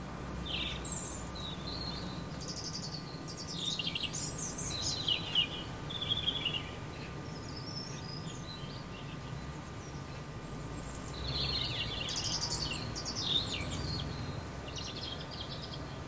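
Small garden birds chirping and twittering in two bouts of quick, high calls, one in the first half and one late on, over a steady low background rumble.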